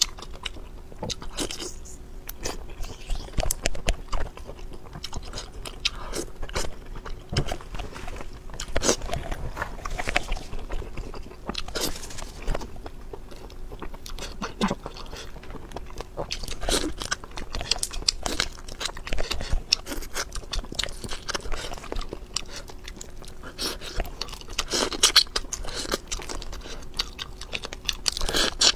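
Close-miked eating of spicy-sauced shrimp: biting, chewing and crunching, with many sharp irregular clicks and crackles, and shells being peeled by hand about halfway through.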